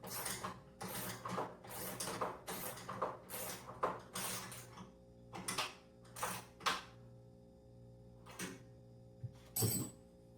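A ratchet wrench with a 13 mm socket tightening a bolt: quick back-and-forth ratcheting strokes about one and a half a second, then slowing to a few single strokes as the bolt snugs up. A sharp metallic clank comes near the end.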